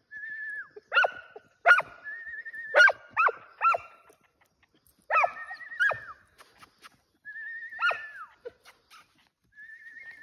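A hunting dog yelping in sharp high cries that fall in pitch, about eight of them in two bursts. Between them comes a warbling high whistle, held for half a second to a second at a time.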